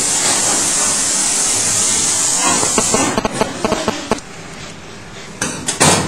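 Water spraying hard from a hose onto a stainless steel table, a steady hiss that stops about three seconds in. It is followed by a run of sharp metallic knocks and clatter, and two loud thumps near the end.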